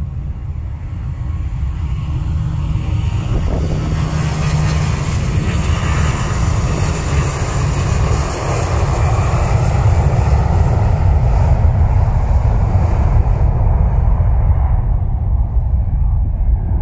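Airbus A340-300's four CFM56 turbofan engines at takeoff power as the jet makes its takeoff roll. The deep rumble builds and grows louder, while a high jet hiss peaks midway and fades near the end.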